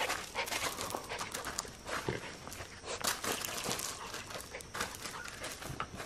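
A small Jack Russell-type terrier scampering around a person's feet on crushed gravel: irregular crunching of gravel under paws and shoes.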